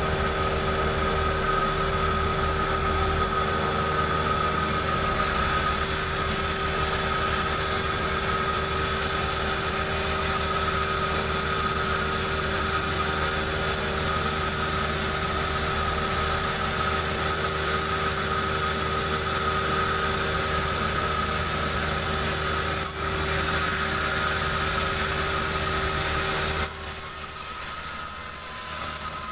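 Chainsaw engine running steadily while ripping a jengkol log lengthwise. Near the end it drops to a lower, quieter run.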